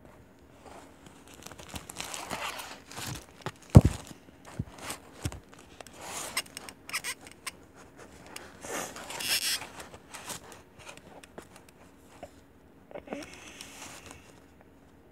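Rustling and handling of a doll's dress being taken off close to the microphone, with cloth brushing and scraping in irregular bursts. One sharp knock about four seconds in, the loudest sound.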